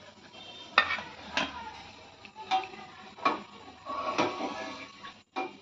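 Perforated steel skimmer clinking against the steel frying pan and steel bowl about five times as fried bondas are scooped from the oil and set down, each clink ringing briefly, over a light sizzle of the hot frying oil.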